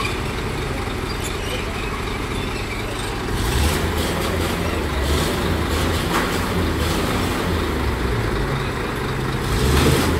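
Heavy diesel truck tractor unit's engine running, louder from about three seconds in, with a short burst of hiss near the end.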